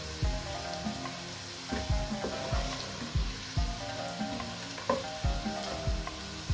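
Sliced onions sizzling as they fry in hot oil in a stainless steel pot, stirred with a wooden spoon, with occasional low thuds.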